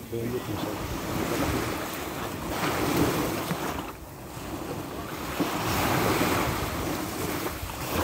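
Sea waves breaking, the surf swelling and ebbing every three seconds or so.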